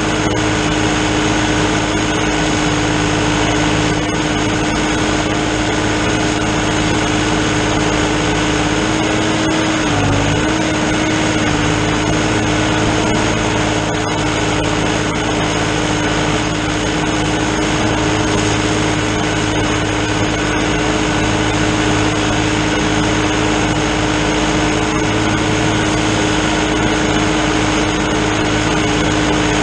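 New Holland TN70 tractor's diesel engine running steadily at working speed, driving a drum mower cutting hay. The pitch dips briefly about ten seconds in.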